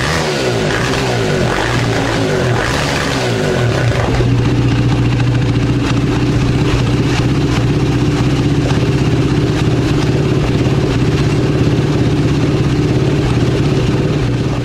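Polaris Outlaw 525 ATV's single-cylinder four-stroke engine being blipped up and down for the first few seconds, then settling to a steady, fast-pulsing idle.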